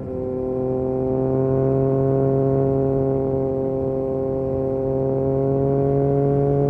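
Yamaha MT-09 SP's 890 cc inline three-cylinder engine through an Akrapovic exhaust, under way at speed. The note dips briefly at the start, then holds a steady tone that climbs slowly in pitch as the bike accelerates.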